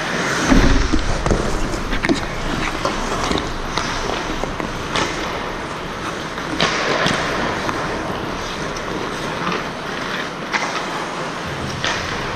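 Ice hockey play: skate blades scraping and carving on the ice, with scattered sharp clacks of sticks on the puck and boards. There is a low rumble about half a second in.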